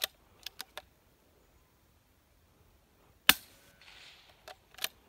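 A CZ 455 .22LR rifle fires a single sharp shot about three seconds in. Several lighter clicks come before it and again near the end.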